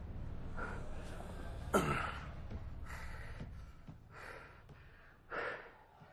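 A man's heavy, laboured breathing: about five gasps roughly a second apart, one near two seconds in with a groaning fall in pitch. A low rumble underneath fades out about halfway through.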